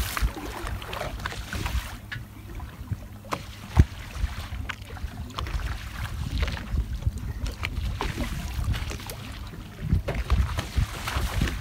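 Wind buffeting the microphone over choppy sea, with water slapping the side of a fishing boat and a low steady hum underneath. A single sharp knock comes about four seconds in.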